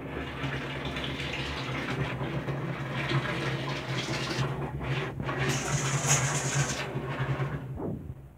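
Water running from a tap into a bathroom sink, with a steady rush that stops shortly before the end. Right after it stops, a cat begins a meow.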